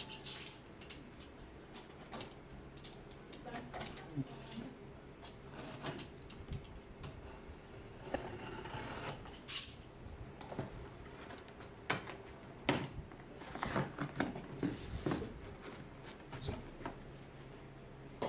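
Box cutter slicing the packing tape on a cardboard shipping box: scattered scrapes, clicks and taps of the blade and hands on the cardboard, with the flaps being pulled open near the end.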